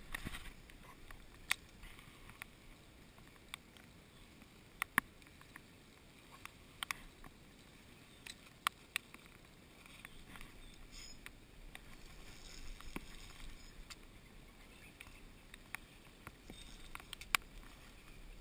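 Irregular sharp clicks and taps, a few seconds apart and some much louder than others, over a faint steady hiss.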